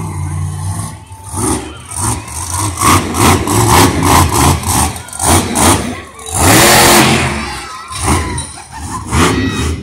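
Monster truck engine revved in a run of short, quick throttle bursts, then held wide open in one louder, longer surge about six and a half seconds in.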